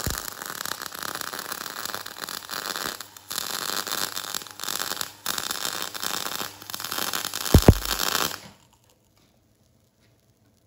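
MIG (GMAW) welding arc crackling and sputtering on galvanized steel plate whose zinc coating has not been ground off, throwing heavy spatter. The arc breaks briefly a few times. A couple of low thumps come just before it cuts off suddenly near the end.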